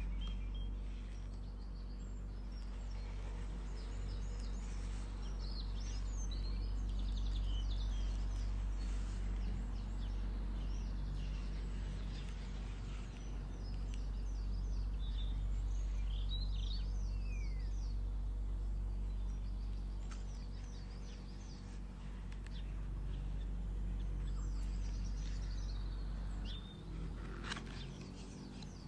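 Steady low hum with birds chirping on and off throughout. Near the end, a short scrape as the cardboard box's end flap is pulled open.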